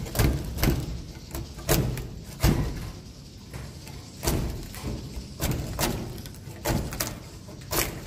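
Swiftlet-nest harvesting pole with a wire-mesh basket scraping and knocking against wooden rafters as the nests are pried off: about a dozen sharp scrapes and knocks at irregular intervals.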